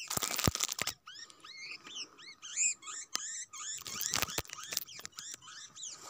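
Footsteps crunching on loose stones, in two short clusters near the start and about four seconds in. Between them comes a quick run of short, high, arching chirps from small birds.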